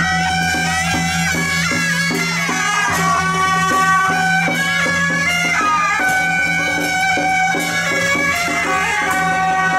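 Traditional Taiwanese temple-procession music: a shrill double-reed suona melody with bending, held notes over a steady percussion beat.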